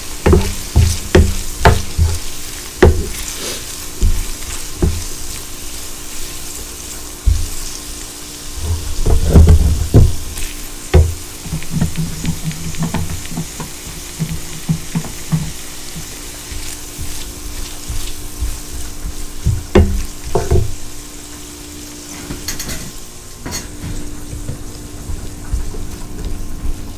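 Diced onion and salami sizzling in a frying pan while a wooden spoon stirs them, knocking and scraping against the pan, with a spell of heavier stirring about ten seconds in.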